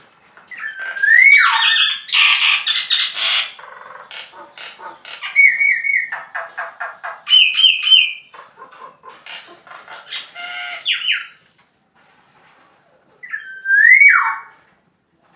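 Male black-naped oriole singing in full voice: fluting whistled phrases that slide up and down, mixed with quick harsher chattering notes. The song comes in several bursts, with a short pause before one last whistled phrase near the end.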